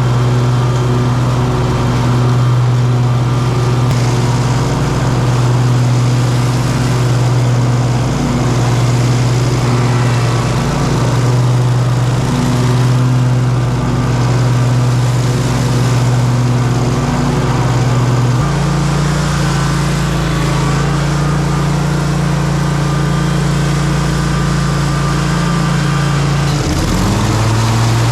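An engine running steadily with a low hum. About two-thirds of the way through its pitch steps up, and near the end it dips sharply for a moment and recovers.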